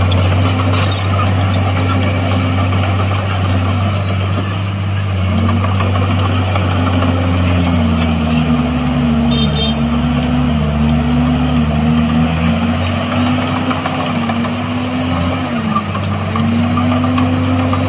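Diesel engine of a heavy earthmoving machine running continuously and loud, its pitch dipping and recovering several times in the middle and again briefly near the end.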